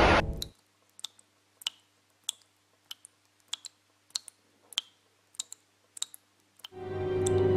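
Water drops dripping from a shower head: about ten sharp, clicky drips, evenly spaced about every 0.6 seconds. A burst of splashing water cuts off just at the start, and music swells in near the end.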